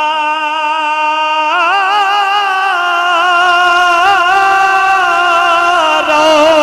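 A male naat reciter singing unaccompanied, drawing out long held notes with a wavering vibrato. The note steps up in pitch about a second and a half in and settles lower again near the end.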